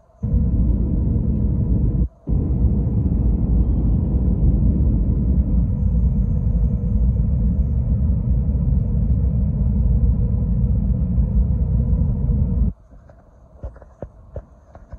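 Cabin noise inside an Airbus A321 on approach: a steady low rumble of the engines and airflow, heard from a window seat over the wing. The sound drops away for an instant twice in the first three seconds, and for about three seconds near the end, leaving only a few faint clicks.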